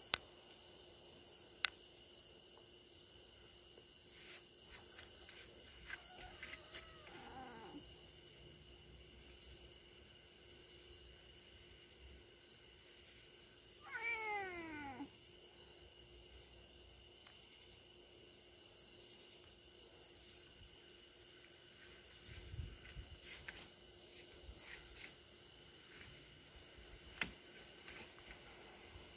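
Maine Coon cat meowing twice: a faint call about seven seconds in and a clearer meow falling in pitch about fourteen seconds in. A steady chorus of crickets chirrs throughout.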